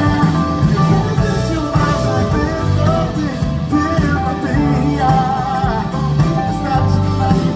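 Live pop-rock band playing: electric guitar, keyboards and drums, with a man singing a wavering melody into a microphone, heard from the audience.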